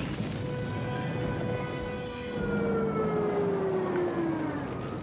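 A fire engine siren holding one steady pitch, then winding down in pitch over the second half, with music underneath.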